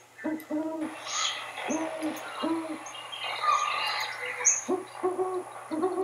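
Great horned owl hooting: a series of short, low hoots, with faint higher bird chirps behind them.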